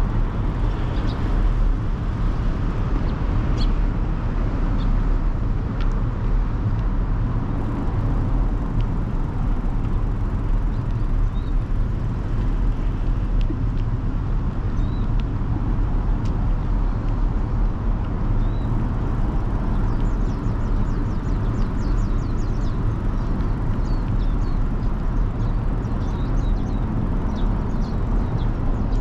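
A steady low rumble of city traffic. In the second half, small birds chirp rapidly over it.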